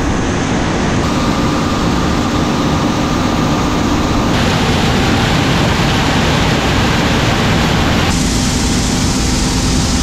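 John Deere combine running while harvesting corn: steady, loud machinery noise with a low hum. The sound shifts abruptly about a second in, at about four seconds and at about eight seconds.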